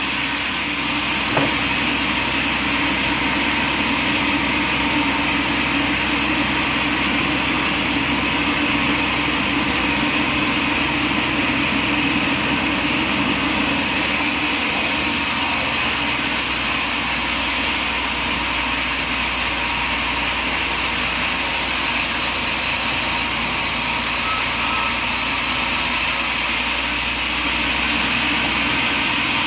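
Sawmill's engine running steadily at a constant pitch, with the noise of the mill working the log.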